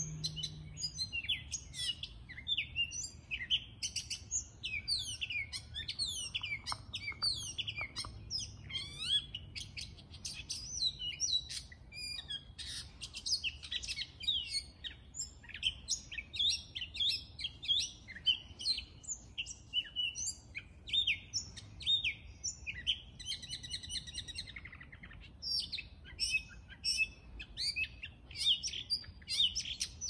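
Many small birds chirping and tweeting over one another without a break. About three-quarters of the way through, one bird gives a quick run of rapidly repeated notes.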